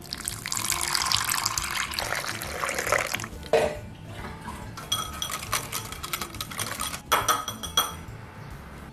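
Warm water pouring into a ceramic bowl of dry yeast for about three seconds. After a single knock, a wire whisk clinks rapidly against the bowl, stirring to dissolve the yeast.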